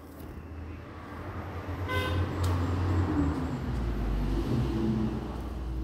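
A motor vehicle passing, its engine rumble building up and easing off, with a short horn toot about two seconds in.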